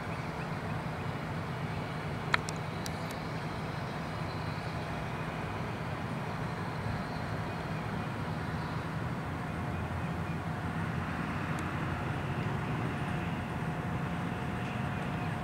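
Steady outdoor background of distant road traffic with a low hum, and one sharp click about two seconds in. A faint steady whine joins in the later seconds.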